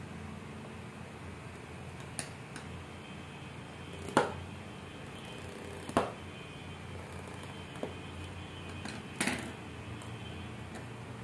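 Scissors snipping at the plastic shrink-wrap on a small cardboard box: a handful of sharp clicks and snips, the loudest about four and six seconds in, and a slightly longer rasping one near the end, over a low steady hum.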